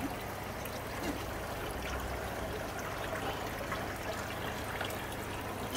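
Water trickling and splashing from decorative fountains, spilling from stacked stone bowls and clay jugs into basins, a steady continuous trickle.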